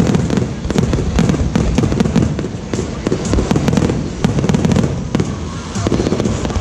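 Aerial fireworks display: shells bursting in quick succession, a dense run of bangs and crackles over a deep rumble.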